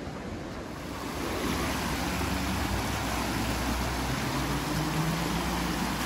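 Rushing water of a mountain stream, a steady hiss that grows louder about a second in, with a low steady hum underneath.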